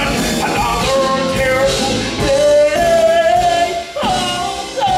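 A stage-musical singer belting long held notes over a live rock band, sliding down into the notes twice near the end, recorded from the audience in a theatre.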